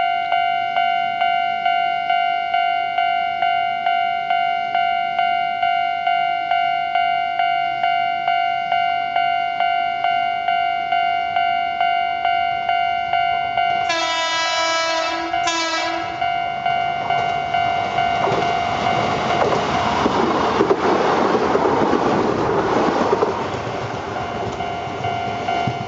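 A crossing bell or alarm ringing steadily, struck about twice a second. About fourteen seconds in, a train horn sounds a long blast and a short one. The train then passes with a heavy rumble and clatter while the bell keeps ringing.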